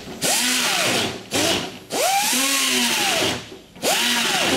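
Power drill run in four short trigger bursts, its whine rising as it spins up and falling as it slows each time, as the bit widens a stud hole in the hood for alignment.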